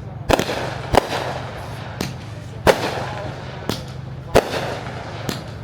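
Fireworks going off: about seven sharp bangs at irregular intervals, several followed by crackling, over a steady low hum.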